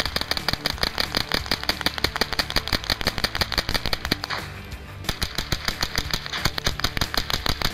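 Rapid, continuous gunfire from AR-15-style rifles, mixed with music. The shots and the music break off together for about half a second a little past the middle, then start again.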